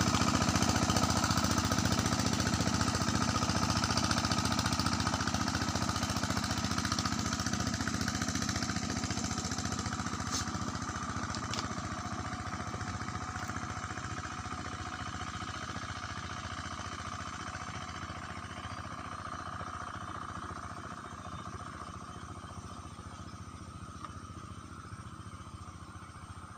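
Small boat's engine running on the river with a rapid, steady beat, slowly fading as the boat draws away.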